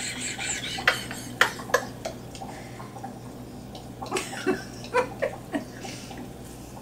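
Soft, scattered clicks and rustles of a chocolate bar and its wrapper being handled.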